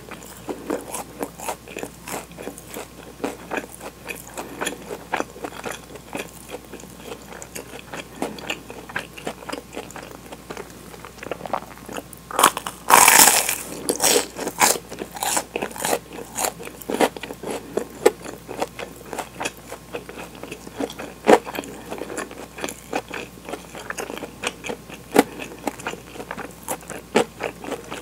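Close-miked chewing of toasted sandwich bread with melted mozzarella: the crisp crust crunches in irregular bites and chews, with a louder burst of crunching about halfway through.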